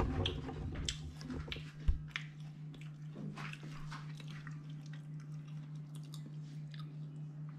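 Someone chewing crisp deep-fried bluegill fillets close to the microphone, with many small crunches early on that thin out later and one dull thump about two seconds in. A steady low hum runs underneath.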